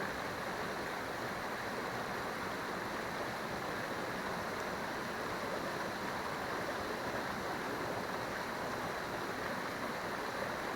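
Steady, even rush of flowing water from a stream or river.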